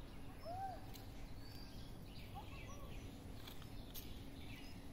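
Outdoor ambience: steady low background noise with scattered faint bird chirps, including one short rising-and-falling call about half a second in, and a few light clicks in the second half.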